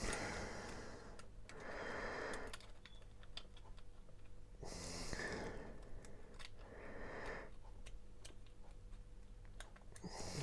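Small plastic toy pieces being handled, with scattered light clicks and taps, alongside several soft breaths or rustles.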